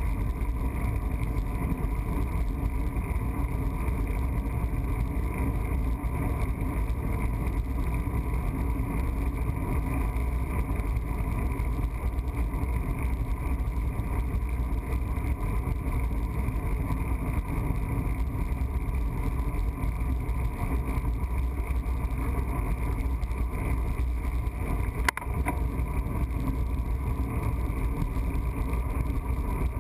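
Steady low rumble of wind buffeting and road noise on a handlebar-mounted camera as a road bike rolls along, with a single sharp click about 25 seconds in.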